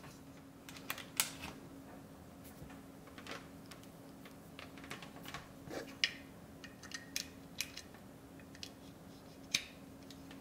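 Small plastic clicks and taps, irregular and scattered, from handling a plastic dual USB camera-battery charger and pushing a micro-USB cable plug into it, with a low steady hum underneath.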